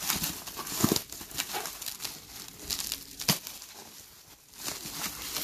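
Bubble wrap crinkling and rustling as hands grip and turn a bubble-wrapped parcel, with a couple of sharp crackles.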